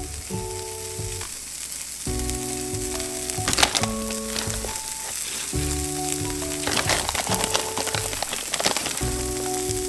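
Shredded cheddar cheese sizzling and crackling on the hot plates of a preheated waffle maker, a steady hiss with scattered crackles. Background music chords play over it.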